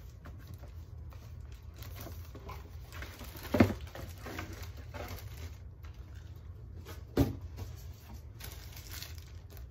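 Cardboard box and plastic wrapping being handled as a boxed balloon lamp is worked out of its packaging, with scattered rustling and crinkling. Two short, sharp knocks stand out, one about a third of the way in and one about three quarters of the way through.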